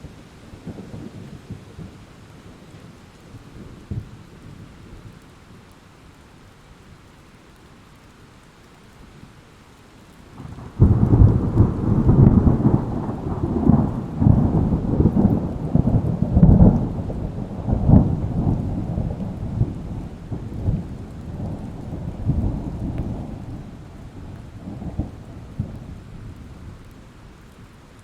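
Thunderstorm with rain: a low roll of thunder fades away, then about eleven seconds in a loud thunderclap breaks suddenly and rolls on with crackling peaks, dying away slowly over the following ten seconds or more, under a steady hiss of rain.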